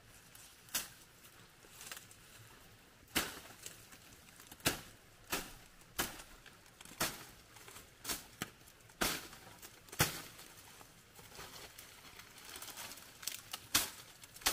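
A series of sharp, crisp clicks and snaps at an irregular pace, roughly one a second, some louder than others.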